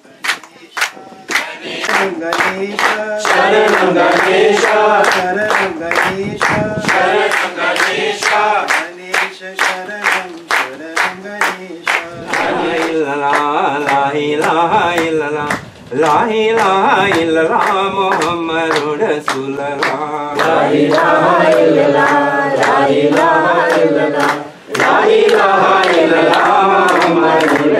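A group singing a devotional bhajan together, with steady handclaps about twice a second keeping time. The singing breaks off briefly twice between lines.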